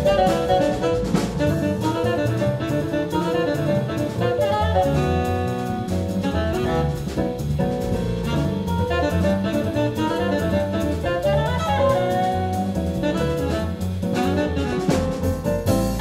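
Jazz fusion quintet playing live: a saxophone leads over a walking double bass and a drum kit, with piano in the band.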